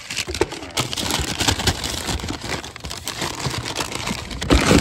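Brown kraft packing paper crinkling and rustling in a cardboard box as hands dig through it, a dense crackle of many small rapid clicks that gets loudest near the end.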